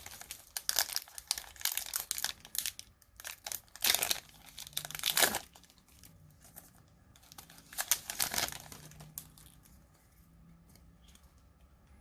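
Foil Yu-Gi-Oh booster pack wrapper crinkling and tearing as it is ripped open, in several bursts over the first half and again a little after the middle, dying down to quieter rustling near the end.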